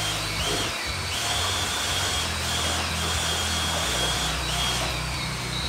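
Electric drill spinning a paddle mixer to agitate a bucket of thick LizardSkin spray-on sound deadener. The motor runs with a steady whine that dips briefly in speed several times.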